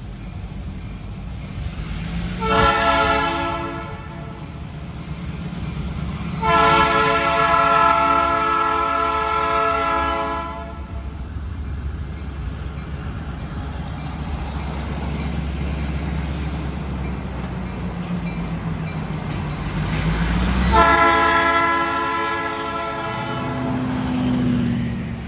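Diesel locomotive air horn sounding at a road crossing: a short blast about two seconds in, a long blast of about four seconds, then a third blast of about three seconds near the end, all over a steady low rumble.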